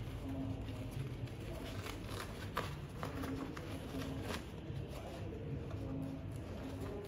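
Soft rustling and light crackling of a thin, fragile shawarma bread being peeled apart by hand, with a few sharper crackles about two seconds in and again just after four seconds.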